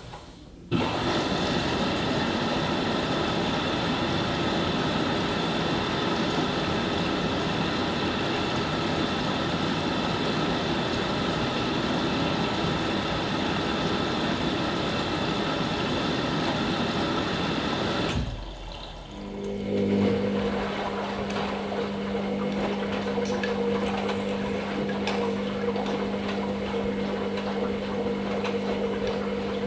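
Hoover Nextra HNL662 washing machine at the start of its wash cycle: water rushing steadily into the machine as it fills. About 18 seconds in, the rushing stops and gives way to a steady machine hum.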